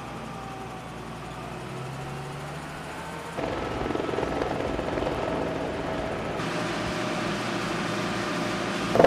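Helicopter noise, steady engine and rotor sound, which turns abruptly louder and fuller a little over three seconds in and changes again about six seconds in.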